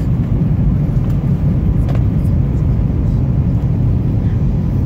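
Steady low rumble of jet engines and rushing air heard inside an airliner cabin as the plane descends on approach to land.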